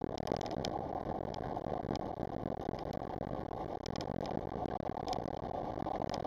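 Car driving slowly in city traffic, heard inside the cabin: a steady engine and road rumble, with small irregular clicks and rattles.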